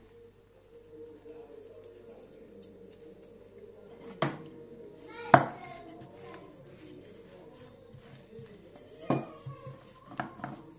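Wooden rolling pin knocking against a wooden tabletop while dough is rolled out: a sharp knock about four seconds in, a louder one a second later, and a cluster of lighter knocks near the end.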